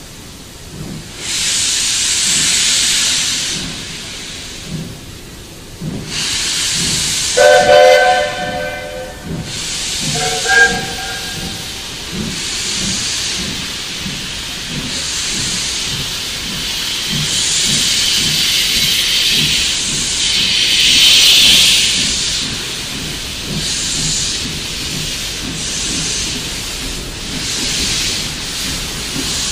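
Steam locomotive blowing off steam in repeated loud hissing blasts, with two whistle blasts, a long one about seven seconds in and a short one a couple of seconds later; after that the hiss goes on in repeated puffs.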